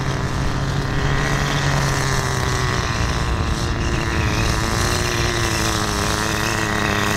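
Small glow-fuel engine of a 1/10 nitro RC touring car running steadily, its pitch rising and falling a little as the car is driven slowly during engine break-in.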